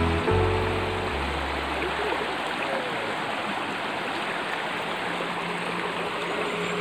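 Shallow river rushing over rocks: a steady, even wash of flowing water. The last notes of background music fade out in the first second or two.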